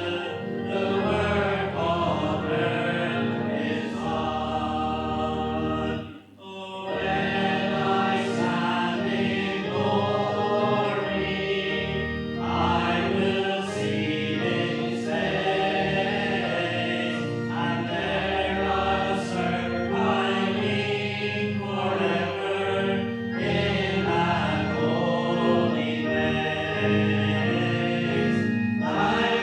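Congregation singing a hymn over held instrumental chords, with a short break between lines about six seconds in.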